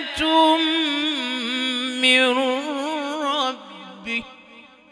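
A man reciting the Quran in the melodic, chanted tajweed style, drawing out and ornamenting a long note with a wavering pitch. The voice trails off and fades about three and a half seconds in.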